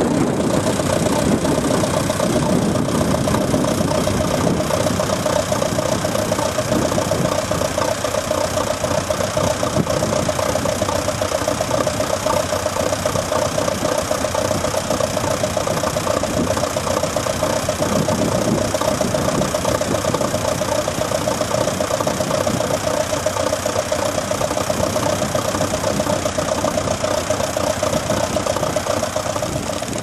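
Vintage tractor engine running steadily.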